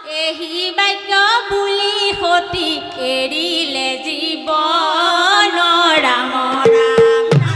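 A group of women singing a devotional hymn in unison without accompaniment, with a barrel drum starting to play in regular strokes just at the end.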